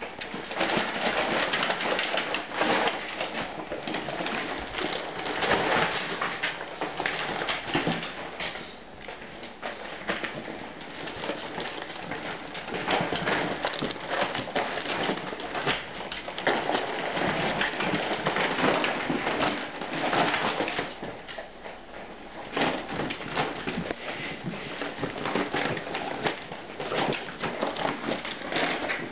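Empty plastic-lined dog food bags crinkling and rustling as a beagle pushes its head inside and noses around, in dense irregular crackles that ease off for a few seconds twice.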